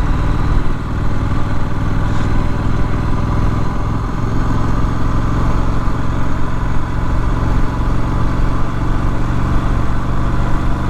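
Triumph Street Scrambler's 900 cc parallel-twin engine running steadily under way at an even pitch, cruising at a constant speed.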